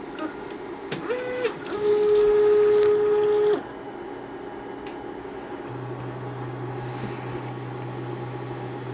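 Stepper motors of an Anet A8 3D printer on an AM8 frame whining at a steady pitch as the print head moves. A short higher-pitched move comes about a second in, then a longer, louder one lasting nearly two seconds. A low steady hum starts a little past halfway.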